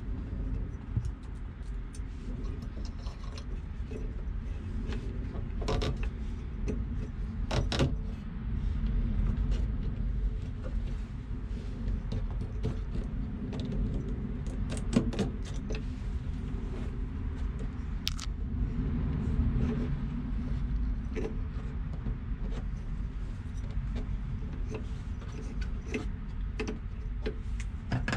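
Scattered small metallic clicks and rattles of pliers fitting a hose clamp onto a rubber fuel hose, over a steady low background rumble.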